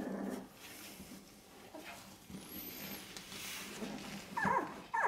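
Newborn puppies squeaking and whimpering as they nurse, with a couple of short, high wavering cries near the end.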